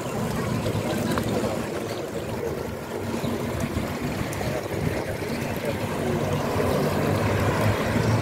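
Water trickling and splashing in a stone street fountain, a steady running-water sound.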